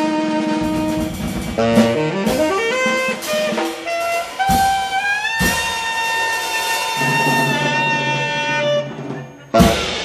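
Live jazz band with saxophone lead over bass and drums, playing the closing bars of a tune: quick rising runs, then one long held saxophone note over a steady bass note, ending in a final crash about half a second before the end.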